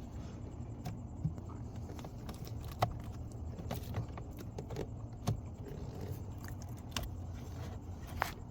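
Scattered light plastic clicks and taps, about one a second, as the glove box and cabin air filter housing are worked open by hand, over a steady low hum.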